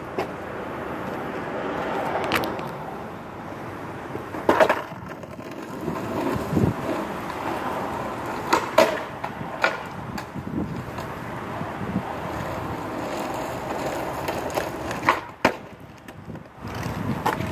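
Skateboard wheels rolling on rough asphalt, with several sharp clacks of the board against the road along the way.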